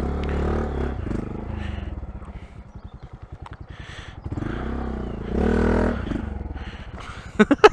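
Honda Monkey 125's single-cylinder engine running at low revs with an even chugging beat. It picks up with more throttle for about a second past the middle, and a few sharp knocks come near the end.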